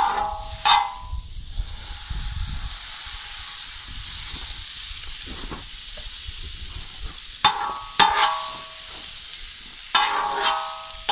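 A hot muurikka griddle pan sizzling steadily over the fire, with several sharp metallic clanks that ring briefly, one near the start and a cluster of them in the last few seconds.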